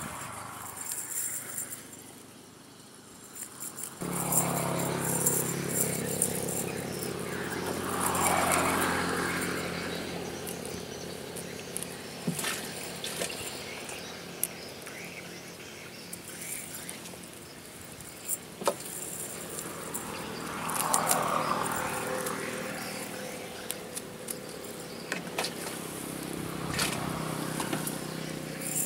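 Insects chirping over a steady engine hum that starts abruptly about four seconds in, with scattered clicks.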